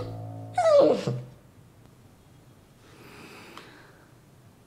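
A Labrador retriever gives one short whine, falling in pitch, about half a second in.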